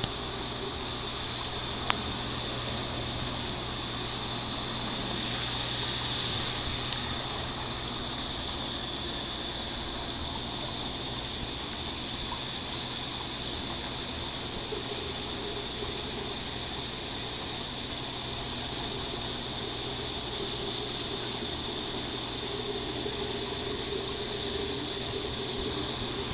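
Aquarium water circulating: a steady trickling rush of water with a low, constant pump hum underneath.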